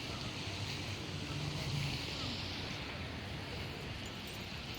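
Steady outdoor background noise: an even hiss with a low rumble under it and no distinct event.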